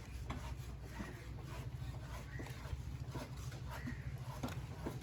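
Knife scraping and knocking against a wooden cutting block while fish is cut, in irregular strokes, over a steady low hum.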